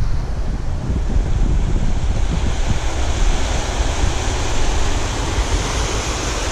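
Ocean surf washing in over a flat rock reef, its hiss swelling about two seconds in as a wave floods the shelf, under heavy wind buffeting on the microphone.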